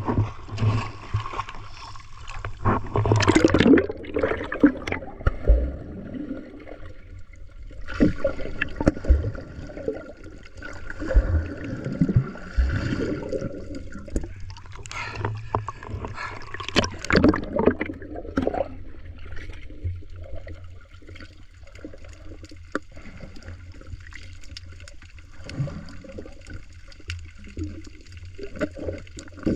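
Seawater sloshing and gurgling against a camera held at the surface and then dipped under water, in uneven surges and splashes that ease off in the last third.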